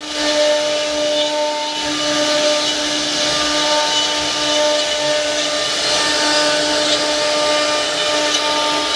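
CNC router carving wood: the spindle runs with a steady whine over a constant hiss of the bit cutting.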